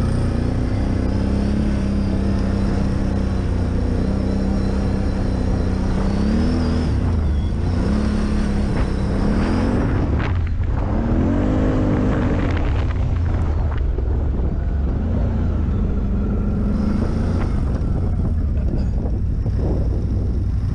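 Off-road vehicle engine running while riding over loose gravel, holding a steady pitch and then revving up and down several times between about six and thirteen seconds in, over a constant low rumble.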